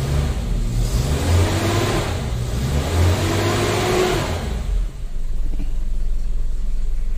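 A Suzuki Katana's four-cylinder engine revs for about four seconds, then drops back to a steady idle. It is running on newly replaced engine mounts, and little vibration now reaches the cabin.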